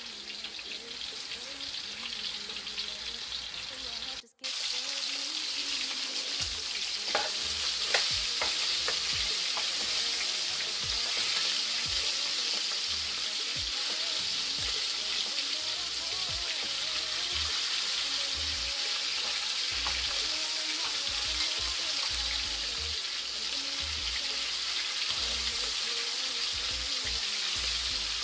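Oxtails and beef short ribs searing in hot oil in a large metal pot, a steady sizzle. The sizzle breaks off about four seconds in and comes back louder, with a few clicks of metal tongs against the pot as the pieces are turned.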